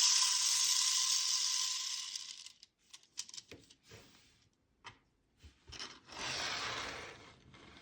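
3D-printed plastic fidget spinner whirring as it spins, fading out over about two and a half seconds. Then a few light plastic clicks, and a second, shorter spin near the end.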